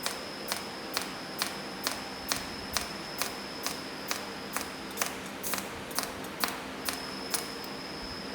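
SZ-1800 precision cold welding machine firing pulsed discharges while repairing an aluminium casting: a sharp tick about twice a second over a steady high whine and a low hum.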